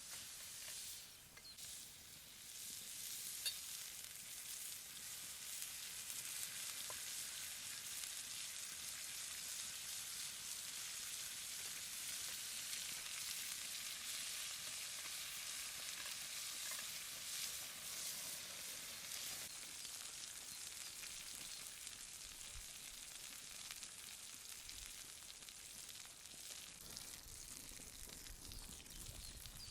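Asparagus and croutons sizzling on a hot stone. A steady frying hiss swells a few seconds in and eases off somewhat in the last third.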